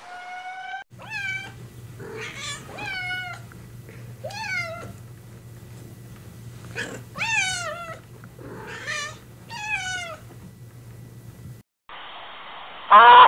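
A cat meowing repeatedly: about eight drawn-out meows, each rising and then falling in pitch. After a short break near the end there is one louder cry.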